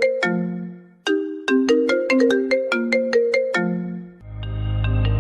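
Phone ringtone: a short melody of quick, bright notes, played once and then repeated after a brief gap. A different ringtone tune with a deep, steady bass fades in near the end.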